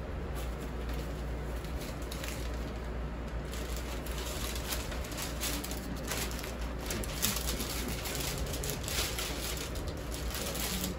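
Electric fan running steadily: a constant low hum under an even airy hiss.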